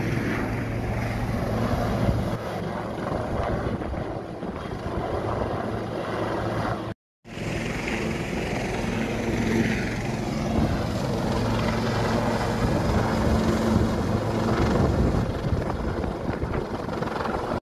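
Wind buffeting the microphone on a ship's open deck, over a steady low drone of engines and a helicopter flying near the ship. The sound cuts out for a moment about seven seconds in.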